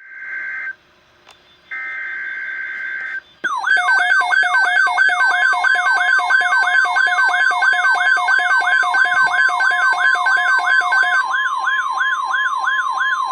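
Emergency Alert System alert opening with two short bursts of screechy digital header tones. About three seconds in, a loud warbling alert siren starts, its tones sweeping down about four times a second, with a steady attention tone left sounding near the end. This is the lead-in to a National Weather Service watch broadcast.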